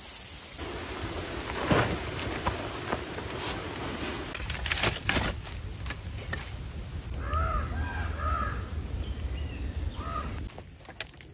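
A crow cawing: a few short, harsh calls in two groups in the second half, over a low steady rumble of outdoor ambience, with a few scattered knocks and rustles earlier on.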